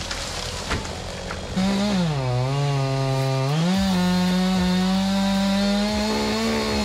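Two-stroke chainsaw cutting into a tree trunk. About a second and a half in it goes to full throttle. Its pitch drops as the saw bogs under load in the cut for about two seconds, then climbs back and holds steady and high.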